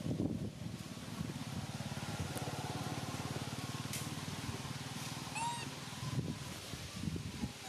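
An engine running steadily with an even, rapid pulse. A short burst of high, squeaky chirps comes about five and a half seconds in.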